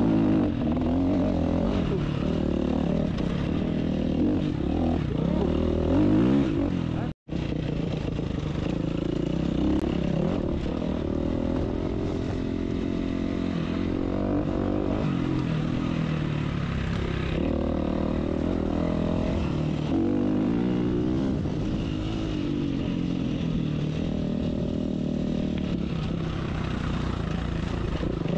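Dirt bike engine running and revving up and down as it rides single track, its pitch rising and falling with the throttle. The sound cuts out for an instant about a quarter of the way through.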